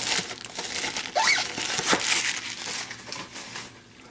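Clear plastic shrink wrap being crinkled and crumpled by hand as it is pulled off a hockey card tin, with a sharp click about two seconds in; the crinkling dies away near the end.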